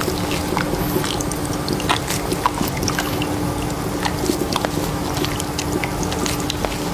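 Running water from a head-spa hair wash, a steady rushing with many small crackles and splashes, over a constant low hum.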